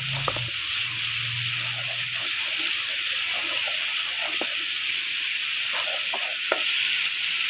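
Onion-tomato masala sizzling and bubbling in a pot, wet from a splash of water added to keep the spices from sticking, as a spoon stirs it and knocks against the pot a few times. A low hum stops about two seconds in.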